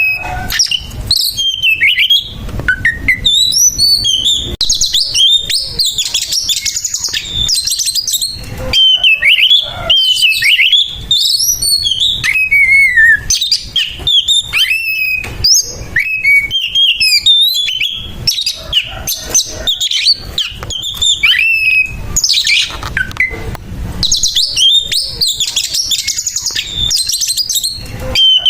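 Oriental magpie-robin (kacer) singing a rapid, varied run of whistles, slurs and harsh notes with a few short breaks: the rough 'fighting' song of a male challenging a rival.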